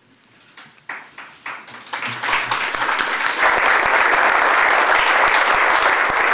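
Audience clapping: a few scattered claps that thicken into steady, full applause about three and a half seconds in.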